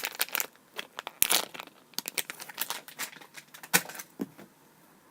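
Hands squeezing and turning a small foam squishy toy close to the microphone: a run of crinkling, crackling clicks and rustles that dies away about four seconds in.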